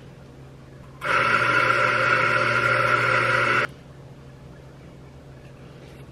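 Electric coffee grinder grinding a single espresso dose into the portafilter. It runs steadily for about two and a half seconds, starting about a second in, then cuts off sharply.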